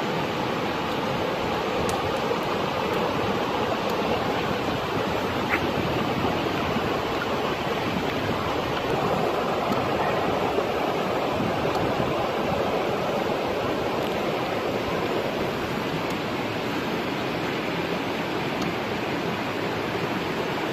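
Steady rushing of flowing water, an even noise that holds constant throughout.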